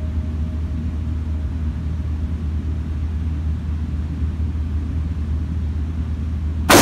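A steady low rumble, then a single loud rifle shot near the end, sharp and followed by a fading echo from the indoor range.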